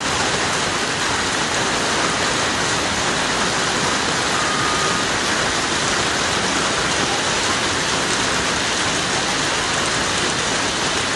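Heavy rain pouring down, a steady, dense hiss.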